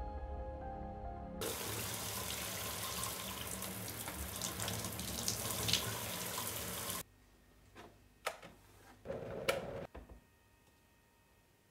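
Shower running steadily, its spray of water hitting a tiled wall, starting about a second in and cutting off abruptly about halfway through. Then a few light clicks and knocks from an electric kettle on its base.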